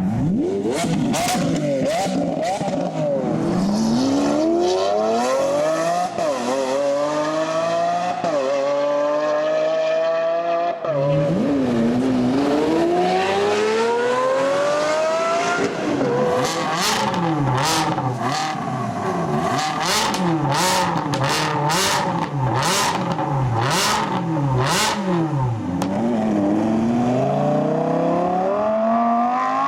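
Supercar engines accelerating hard, the pitch climbing through several gear changes. About a third of the way in the sound cuts to another car that revs in a run of quick up-and-down throttle blips, each with sharp exhaust cracks. It accelerates again near the end.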